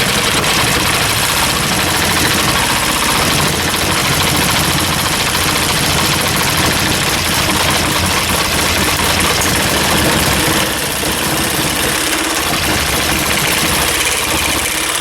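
Reciprocating-blade power saw running continuously as it cuts through a wooden board, with a slight drop in level and change in tone about 11 seconds in.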